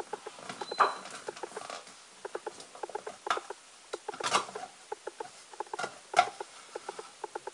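Plastic clicks and knocks from a countertop blender's jar and lid being handled: a run of small quick clicks, with four louder knocks spread through.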